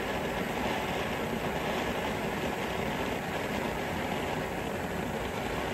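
World Class Mega Mini fountain, a small ground firework, burning with a steady hiss as it sprays sparks.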